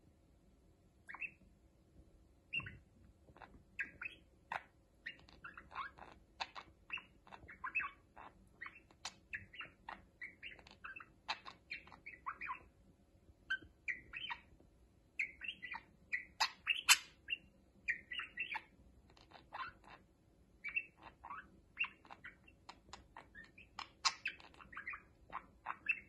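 Budgerigar and barred parakeet chattering: a long run of quick, short chirps with brief pauses, starting about a second in.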